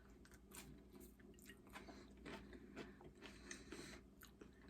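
Faint chewing of a mouthful of taco, with a run of small crunches and mouth clicks.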